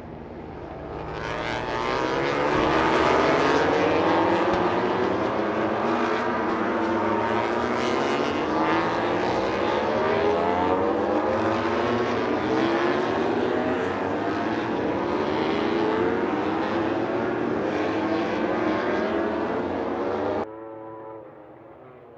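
Several MotoGP racing motorcycles' engines at high revs, accelerating. The pitch climbs and drops back again and again as they shift up through the gears. The sound cuts off suddenly near the end.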